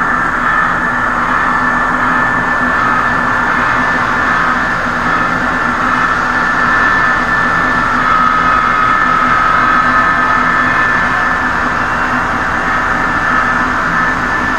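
Steady mechanical hum with a few held tones from model trains running on the layout, with no breaks or changes in level.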